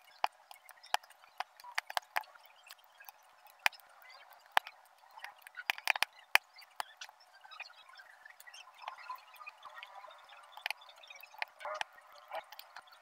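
Metal tweezers picking up square resin diamond-painting drills and pressing them onto the sticky canvas: a string of small, irregular clicks and taps, thickest about six seconds in.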